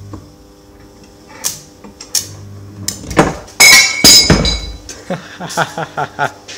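Metal clinks and clanks from a stick-welding job on a steel exhaust header: two sharp taps, then a loud clattering crash about three seconds in as the header pipe comes off its flange, followed by a run of about five quick ringing metallic taps.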